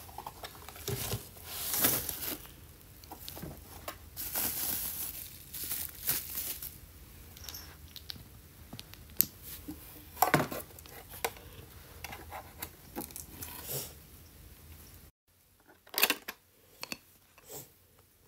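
Hands handling an LED mirror and its packaging: plastic film crinkling and rustling, with scattered clicks and taps. Near the end the sound cuts out briefly, then comes a short run of sharp clicks.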